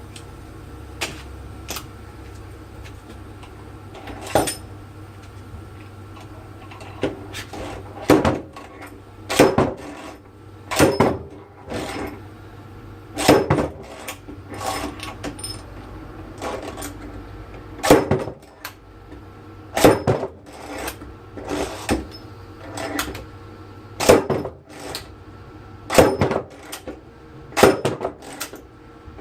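Repeated heavy metal-on-metal strikes, each with a short ring, about one every one and a half to two seconds with lighter knocks between: blows knocking a bearing out of a washing machine drum.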